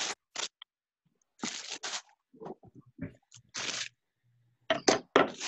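Lettuce being rinsed under a tap and handled, heard as short bursts of splashing hiss and leaf crunching, broken up by silent gaps.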